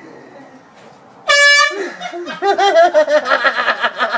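An air horn gives one loud, short blast of about half a second, a little over a second in. Laughter follows straight after, in rapid rhythmic pulses.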